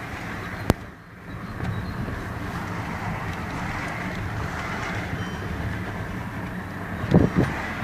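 Steady rumble of a car on the move, with a sharp click less than a second in and a few knocks near the end.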